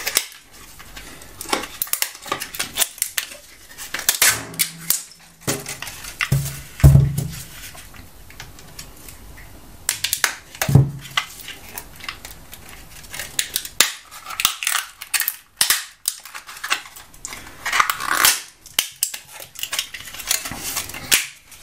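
Plastic laptop battery case being pried apart with a screwdriver and handled: irregular clicks, snaps and scraping of hard plastic, with a heavier knock about seven seconds in and another about eleven seconds in.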